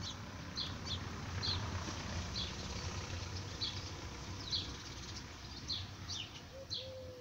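A car passing, a low rumble that swells through the middle and then fades, while a bird repeats short high chirps about once a second.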